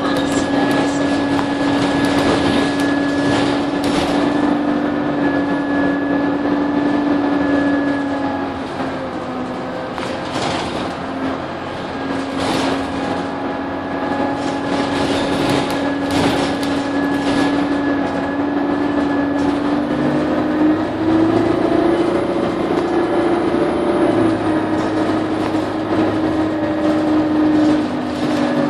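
Inside a moving Alexander Dennis Enviro200 single-deck bus: a steady engine and driveline drone with a whine whose pitch dips for a few seconds in the middle and rises again later as the bus changes speed. Frequent short rattles and knocks come from the body and fittings.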